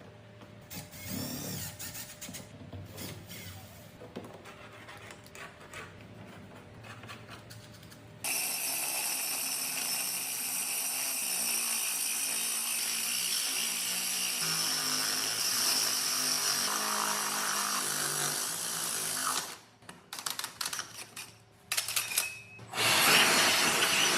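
Power drill running steadily for about eleven seconds, then stopping, followed by a few short bursts and another brief run near the end.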